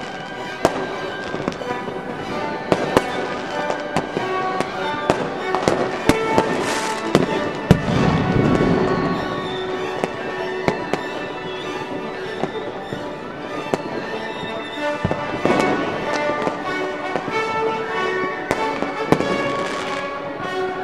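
Fireworks going off in a string of sharp bangs and crackles, with a dense run of heavier, rumbling bursts about a third of the way in. Music with sustained notes plays throughout.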